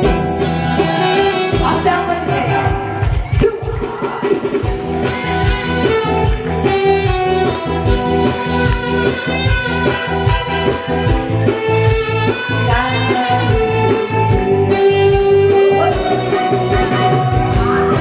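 Loud song music with a steady beat, guitar and a melody line, played without pause.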